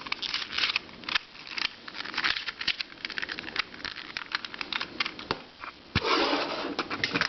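Handling noise from small plastic puzzles being picked up and moved on a shelf: irregular light clicks, taps and rustling, with a longer rustle about six seconds in.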